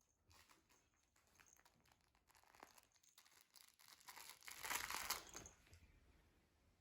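Faint rustling and crinkling with scattered light clicks, swelling to its loudest about five seconds in and then fading.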